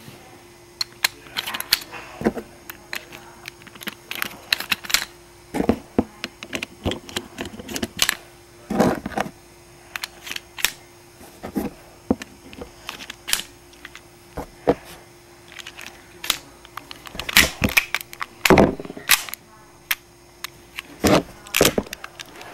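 Toy cap-gun revolver being handled and loaded: irregular sharp plastic and metal clicks and clacks as the cylinder is worked and shell cartridges are pushed in, the loudest cluster coming about three-quarters of the way through.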